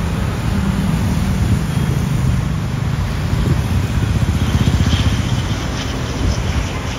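Steady low rumble of an ATR 72 turboprop airliner flying low on final approach, mixed with road traffic and a bus engine close by.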